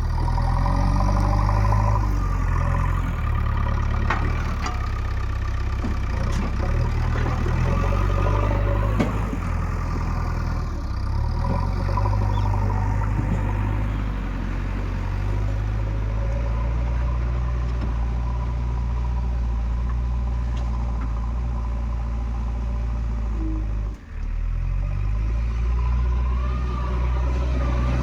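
Diesel engine of a JCB 3DX backhoe loader running at work, a steady low drone that rises and falls as the machine is worked, with a few light knocks.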